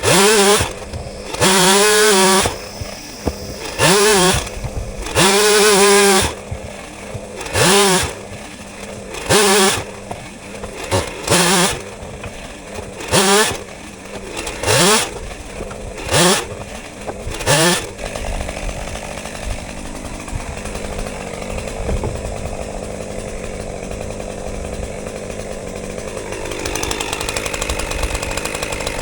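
Chainsaw bucking logs into firewood rounds: the engine is revved up and let back down in short bursts every second or two, then from about eighteen seconds in it runs steadily at a lower pitch.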